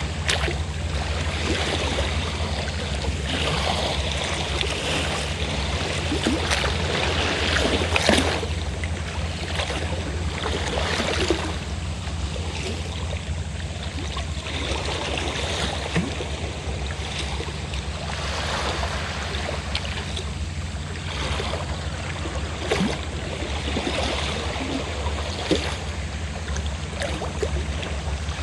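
Sea waves washing in and out in swells every few seconds, with brief sharp splashes now and then, the loudest about eight seconds in. A fishing boat's engine runs as a steady low drone underneath.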